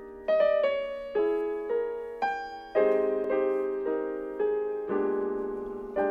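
Background piano music: gentle notes and chords struck about every half second, each ringing and fading.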